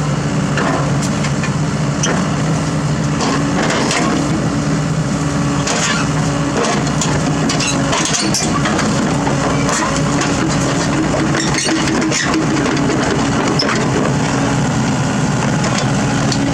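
A diesel mini excavator's engine running steadily, with repeated knocks, clanks and cracks scattered throughout as the machine is unloaded from the truck.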